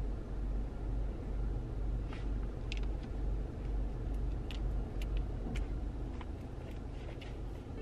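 Steady low rumble inside a car's cabin, with scattered light clicks and rustles from about two seconds in as wired earphones are pulled out and handled.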